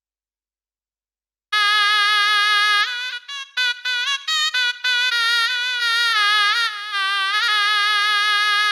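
Sampled wind-instrument sound from the SwarPlug 4 Indian-instrument VST playing a melodic phrase. It starts about a second and a half in with a held note, then plays quick short notes, with sliding bends and wavering pitch between held notes.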